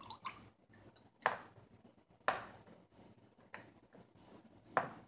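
A silicone spatula stirring oils in a plastic mixing bowl, with three sharp knocks of utensil against bowl: about a second in, about two seconds in, and near the end.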